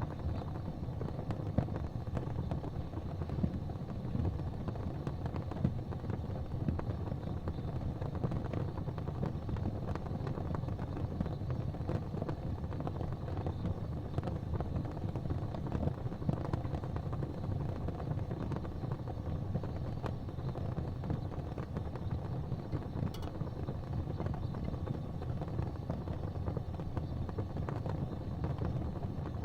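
Gas fireplace flames burning with a steady low whooshing rumble, with faint small crackles here and there.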